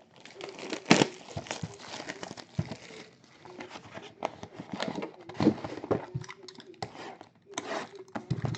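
Crinkling and rustling of packaging being handled, with scattered irregular taps and clicks.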